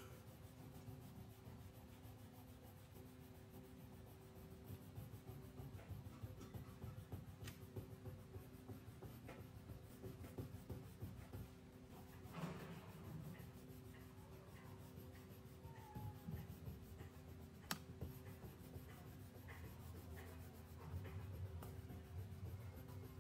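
Faint scratchy rubbing of a pink crayon shaded back and forth on paper as an area is coloured in, over a low steady hum, with a couple of sharp clicks.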